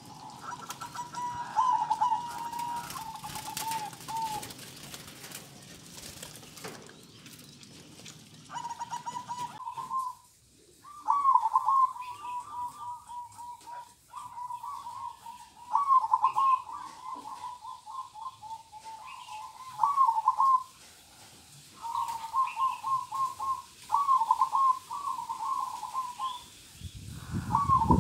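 Zebra doves (perkutut) cooing: about eight phrases of rapid, stuttering coos, each a second or two long, separated by short pauses.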